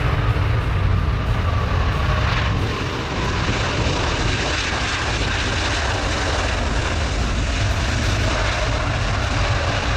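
Large jet aircraft's engines running, a loud steady rush with a faint whine that sinks slowly in pitch now and then.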